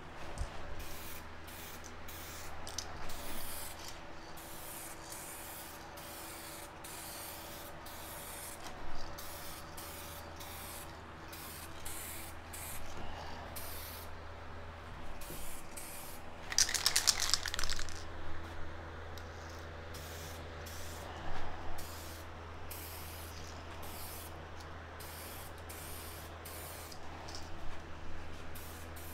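SprayMax 2K clear coat aerosol can spraying in many short hissing bursts as a first light coat goes onto motorcycle fairings. One longer, louder burst comes about halfway through.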